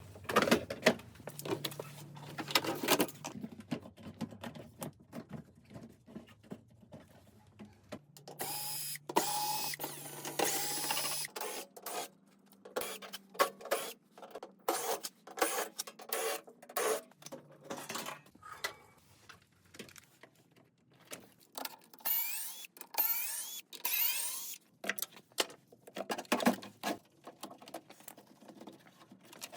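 Repair work on a washing machine: irregular clicks, knocks and clatter of tools and metal parts, with short whirring mechanical bursts and brief stretches of low hum, in quickly changing sequences.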